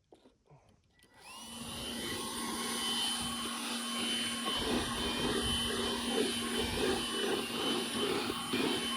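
Chainsaw on a chainsaw mill coming up to full throttle about a second in and then running steadily, ripping a slab lengthwise from a white oak log.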